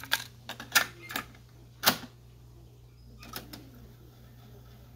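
Mechanical clicks and clunks from a Marantz SD3000 cassette deck's transport controls, a quick run of them in the first two seconds with the loudest near two seconds in, then two more a little after three seconds, over a low steady hum.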